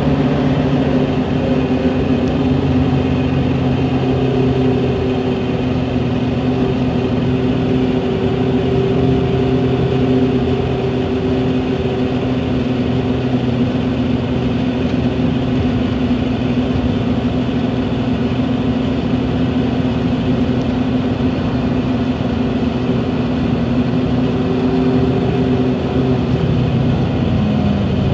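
Scania DC12 06 inline-six diesel of a Scania K380 coach running steadily, heard from inside the passenger cabin, its pitch dipping slightly near the end.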